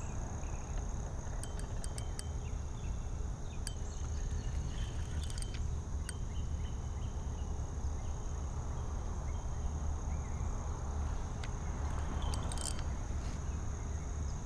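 A steady chorus of insects, crickets or katydids, holds one continuous high buzzing tone. Under it runs a low rumble, and now and then there are sharp clicks from the rod and spinning reel being handled.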